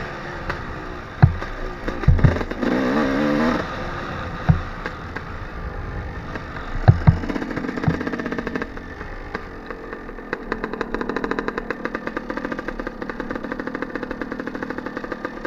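Suzuki RM250 two-stroke single-cylinder dirt bike engine running, with a brief rev about two and a half seconds in and several sharp thumps as the bike rides over rough ground. From about ten seconds in it settles to a low, even putter as the bike rolls slowly across grass.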